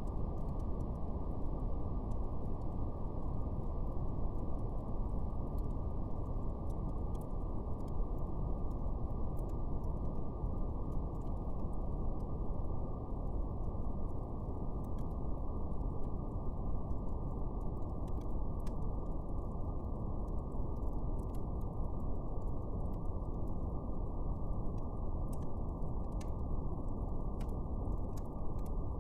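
Steady brown noise, a deep even rumble-like hiss with nothing above the low and middle range, under a faint, sparse crackle of a fire, its small clicks growing a little more frequent near the end.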